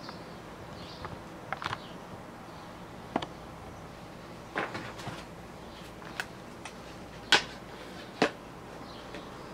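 Light scattered clicks and knocks of handling, the loudest two near the end, as a laptop is set down and pushed into place on a bamboo laptop desk.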